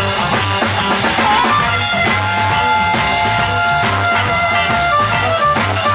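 Live blues band playing: electric guitar, bass guitar and drum kit, with a blues harmonica coming in about a second and a half in on long held notes.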